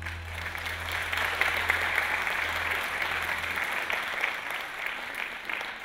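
Audience applauding at the end of a stage performance, with a low hum carrying on from the music that stops about three and a half seconds in. The clapping eases off near the end.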